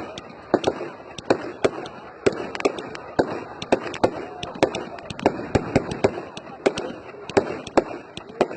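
Fireworks display: a rapid, irregular string of sharp bangs, two or three a second, over a background of crowd voices.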